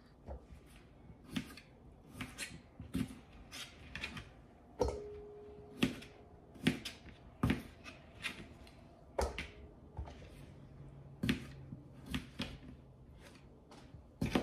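Small paring knife cutting baby potatoes into bite-sized pieces, the blade knocking sharply on the cutting board at irregular intervals, one or two times a second.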